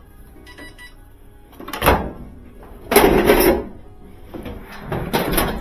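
Sheet-metal top panel of a Kenmore dryer being lifted off, clanking and rattling in three bursts, the longest about three seconds in, over faint background music.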